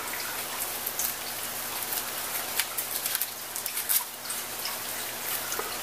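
Light crackling and rustling of a dryer-sheet sachet and jute twine being handled as the twine is tied around its gathered neck, over a steady hiss and a faint low hum.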